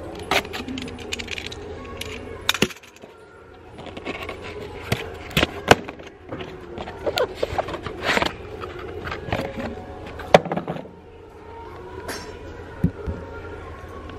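A cardboard shipping box being opened by hand: a cutter slits the packing tape, then the flaps are pulled open and the carton is handled, making a run of irregular sharp scrapes, rips and taps. A steady low hum and faint music sit underneath.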